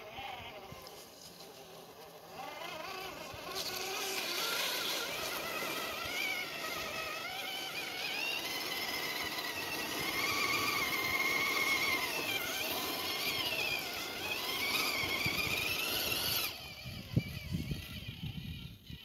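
Axial SCX10 II RC crawler's electric motor and gears whining, the pitch rising and falling as it drives. The whine stops suddenly about three-quarters of the way through, and a few irregular knocks follow.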